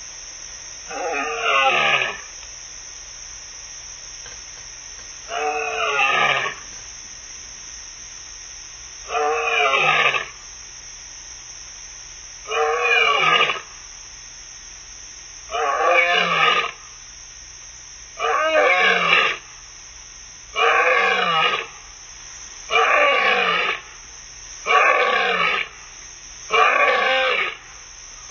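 A lioness roaring: a bout of about ten deep calls, each about a second long and falling in pitch. The calls come closer together as the bout goes on.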